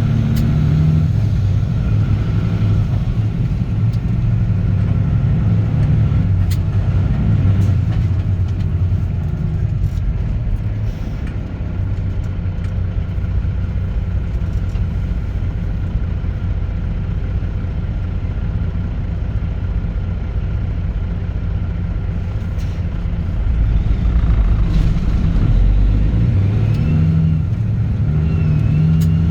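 Caterpillar C15 ACERT inline-six diesel with a straight-pipe exhaust, pulling a heavy truck down the road with a steady deep rumble. It grows louder for a couple of seconds about three-quarters of the way through.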